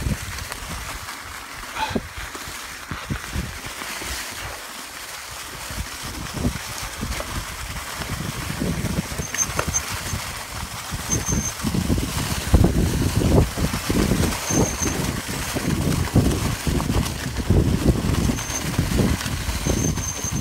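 Mountain bike running downhill over a leaf-covered dirt trail: wind buffeting the microphone, tyres rolling through leaves, and the bike jolting and rattling over bumps, louder and rougher in the second half. A few brief high squeaks come in that second half.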